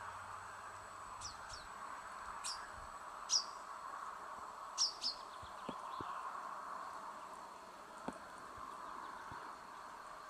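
Chaffinches calling: short, sharp, high chirps, about seven of them in the first half, some in quick pairs, over a steady background hiss.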